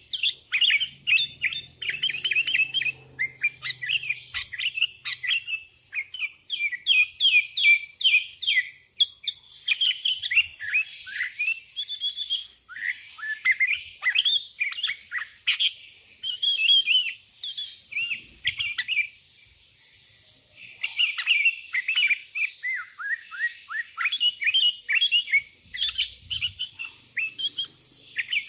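Sooty-headed bulbul (kutilang) singing without let-up in quick runs of short, falling notes. This is the busy 'gacor' song used to call rival bulbuls. The song breaks off for about a second roughly two-thirds of the way through.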